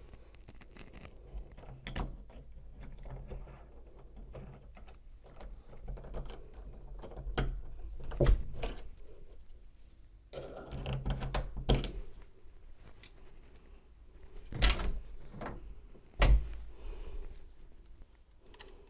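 Metal clicks, scrapes and a few louder knocks as the bolt mechanism of a Kwikset smart key deadbolt, its core already pulled out, is reached into and worked to unlock the door.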